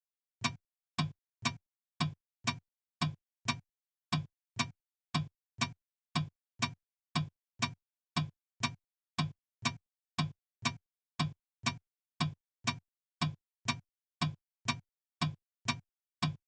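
Ticking-clock sound effect of an animated alarm clock: sharp, even ticks at about two a second, starting about half a second in after dead silence.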